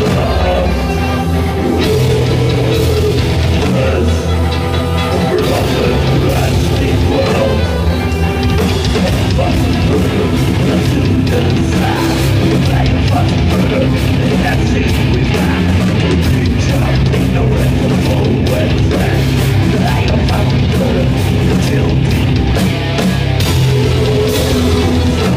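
Heavy metal band playing live and loud: electric guitars and a drum kit, with dense, steady drum hits.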